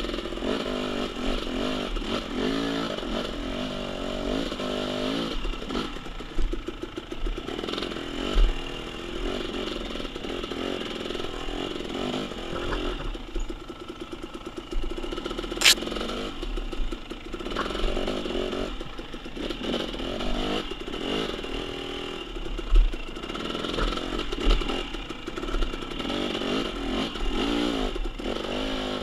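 KTM XC-W 300 TPI two-stroke dirt bike engine revving up and down as it climbs rough, rooty single track, with clatter and a few sharp knocks from the bike over roots and rocks.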